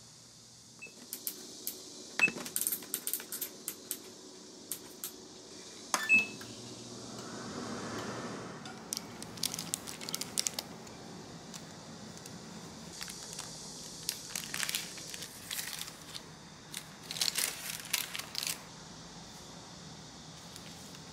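Baking handled in the kitchen: a few sharp metallic knocks and clinks as the square metal cake tin is moved, then several spells of parchment paper crinkling as the baked cake's lining is handled.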